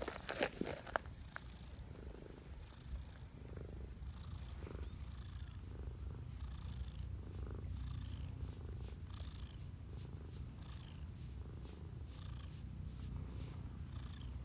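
A tortoiseshell cat purring steadily while being stroked: a continuous low rumble that swells and eases about once a second with its breathing. A few sharp rustles come in the first second.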